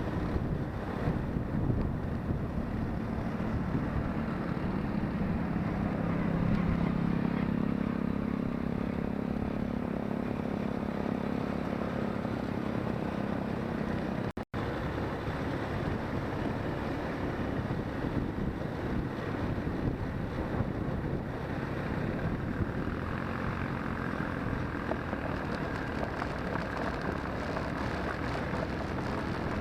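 ATV engine running under way, a steady drone with a low hum strongest through the first half. The sound drops out for an instant about halfway through, then the engine noise carries on.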